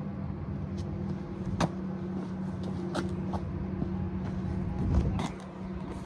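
Tractor diesel engine idling steadily, with a few short clicks and knocks from handling on the plough about one and a half, three and five seconds in.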